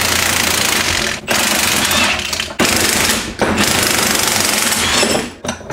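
Milwaukee cordless impact wrench hammering in four runs of a second or more, with short pauses between them, as it backs off the threaded rods of a pair of spring compressors to let the stock coil spring on the strut extend.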